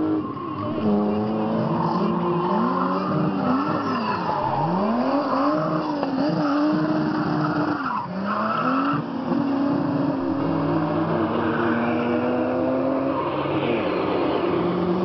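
A drift car's engine revving up and down again and again as the car slides through a corner, with the tyres skidding and squealing on the asphalt.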